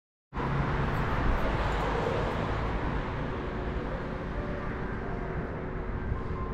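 City street ambience with steady traffic noise, louder in the first few seconds and then easing off a little, with a faint steady hum underneath.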